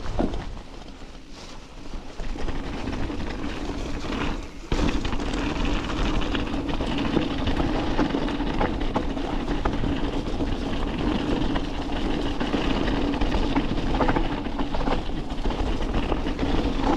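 Mountain bike rattling and clattering as it descends a rough, wet, rocky track, with a steady buzz underneath. It gets suddenly louder about five seconds in.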